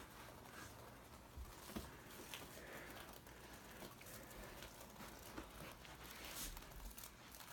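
Near silence: room tone with a few faint, scattered taps and rustles.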